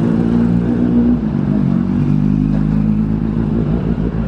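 Motor scooters passing close by on a busy street, their small engines running, with general traffic noise behind.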